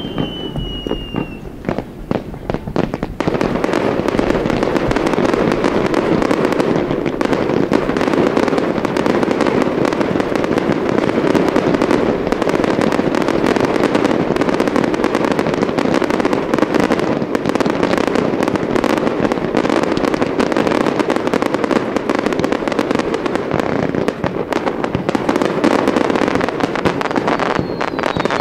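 Fireworks display going off: a few separate bangs in the first three seconds, then a dense, continuous barrage of bangs and crackling.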